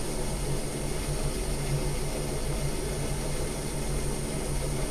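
Well-worn Atlas 10-inch metal lathe running steadily, its motor and drive giving a low, even hum.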